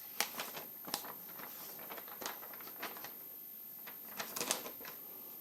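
Faint rustling and a handful of short, sharp clicks as the paper pages of a service manual are handled and turned.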